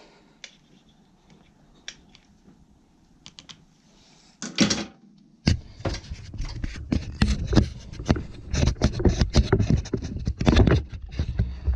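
Hands working a vacuum hose and its fittings into place: a few faint clicks at first, then from about halfway in a dense, loud run of clicks, scrapes and knocks.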